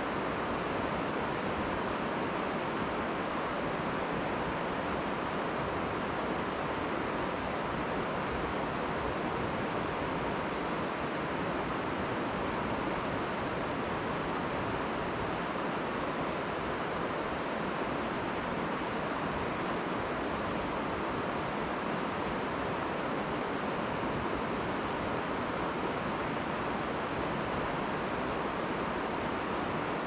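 Mountain river water rushing steadily, an even hiss of flowing water without breaks.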